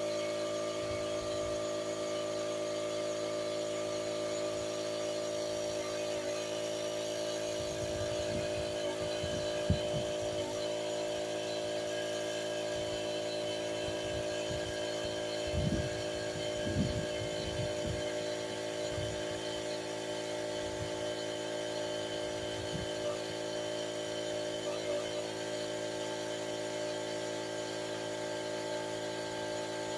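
A steady machine hum of several fixed pitches, with a sharp click about ten seconds in and a scattering of low knocks, likely from handling tools and parts during brake work.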